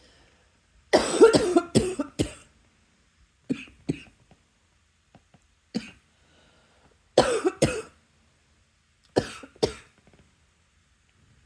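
A person coughing in short fits of one to four coughs with pauses between, about five fits in all. The first fit, a second in, is the loudest and longest.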